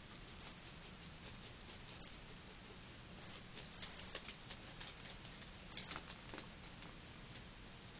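Faint steady hiss with a scattered run of faint short clicks and ticks between about three and six and a half seconds in.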